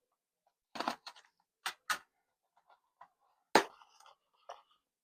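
Product packaging being handled and opened: a series of short rustles and clicks, with a sharper knock about three and a half seconds in.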